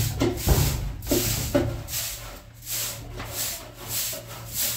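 Rough scraping strokes, coming unevenly about twice a second.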